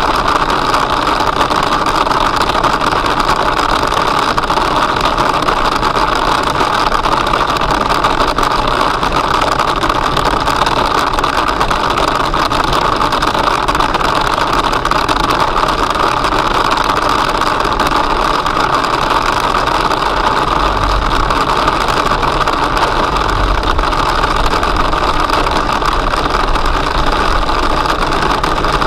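Marble- to ice-cube-sized hail and heavy rain drumming on a car's roof and windscreen, heard from inside the cabin as a dense, steady clatter of countless small impacts, over the car's road noise.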